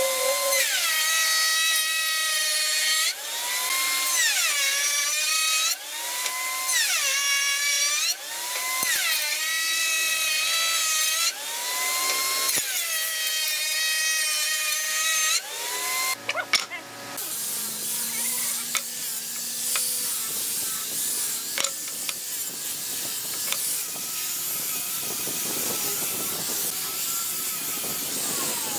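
A handheld power tool motor spinning up, running briefly and stopping, repeated about every two to three seconds, like a drill working in short runs on wood. Partway through, this gives way to a steady rasping noise of tool work on wood.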